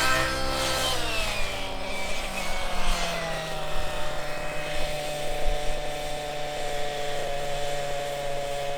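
OS 91 Speed nitro engine with an Absolute CNC tuned pipe, running in a radio-controlled model helicopter. Its pitch drops over the first three seconds as it is throttled back, then holds steady at a lower speed.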